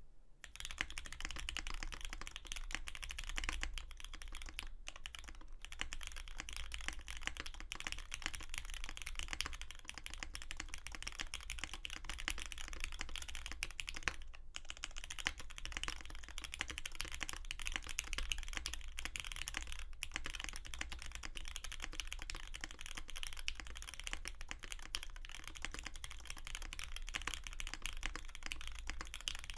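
Steady typing on a Bauer 2 custom mechanical keyboard with a black and brass case, aluminum plate, lubed Cherry MX Black linear switches and GMK keycaps. It makes a dense, continuous run of key clacks, with short pauses about five and fourteen seconds in.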